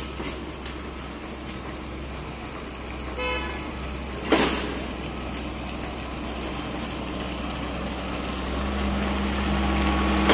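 Wheel loader's diesel engine running, growing louder near the end as the machine comes close. A short horn toot about three seconds in and a loud bang just after four seconds.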